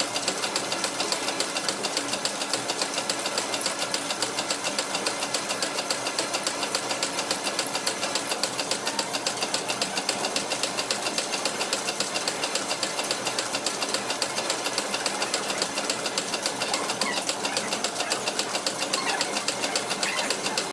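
Old line-shaft-driven drilling machine running and drilling a hole in a casting, with a rapid, even mechanical clatter that cuts off suddenly at the end.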